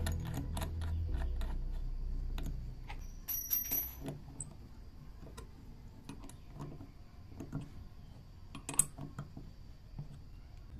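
Irregular metal clicks and clinks of a drill bit being slid into a keyed drill chuck, then the chuck key's teeth working against the chuck's geared collar as it is turned to clamp the bit, with a brief high metallic ring a little after three seconds in.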